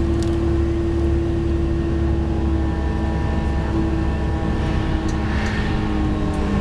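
Train running at speed: a steady low rumble with a drone of several steady tones over it, and a few faint clicks.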